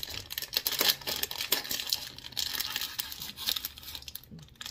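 Plastic packaging crinkling steadily as it is handled, a dense crackle of small clicks.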